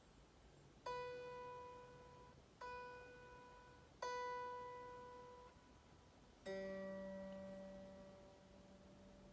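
Squier Affinity Stratocaster strings plucked one at a time: three single notes on the same pitch, each left to ring and fade, then a lower note near the end that rings on. This is typical of checking intonation at the 12th fret.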